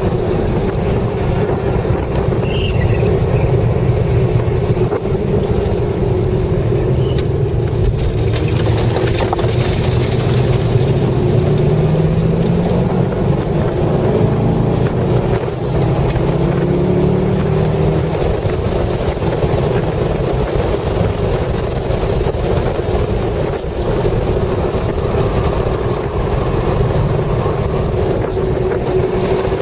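C6 Corvette Z06's 7.0-litre V8 running hard at track speed, heard from inside the cabin with wind and tyre rush. The revs climb and drop with throttle and gear changes, rising twice about midway.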